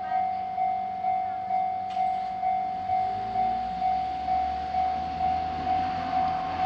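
Japanese railroad crossing warning bell ringing about twice a second, a single steady tone on each strike. From about halfway in, a train's rumble builds beneath it.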